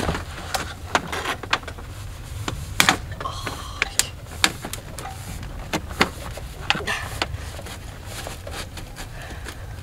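Stovepipe of a Naturehike titanium wood stove being fitted and slid into place: irregular metal clinks, knocks and scrapes, with a brief metallic ring about three seconds in, over a steady low rumble.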